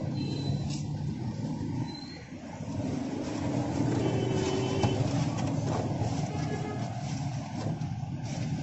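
Steady street traffic noise, vehicle engines running, with faint voices mixed in.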